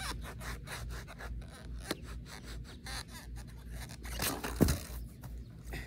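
Skateboard on grass: a light tap about two seconds in, then a louder thud as the board is popped and strikes the grass about four and a half seconds in, over a steady crackly rustle.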